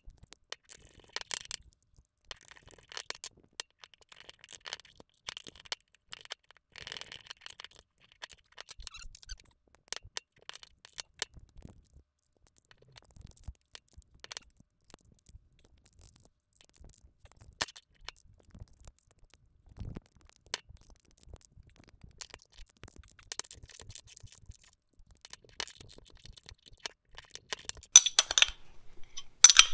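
Hand tools working small steel fasteners: scattered light metallic clicks and short scrapes as an Allen wrench and a wrench tighten 1/4-20 cap screws and nylon-insert lock nuts on a steel mower pulley, with a few louder clinks near the end.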